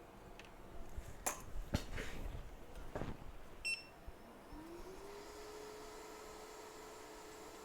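A few knocks and clicks of tools being handled on a workbench, then a short beep as a hot air rework station is switched on. Its blower spins up, rising in pitch, and settles into a steady hum with a hiss of airflow.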